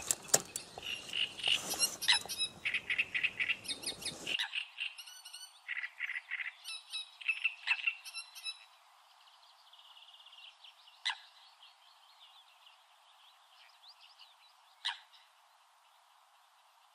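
Frogs and birds calling at a pond's reed bed: dense chirping and croaking for the first four seconds, then thinning to a faint trill and a few sharp, single calls.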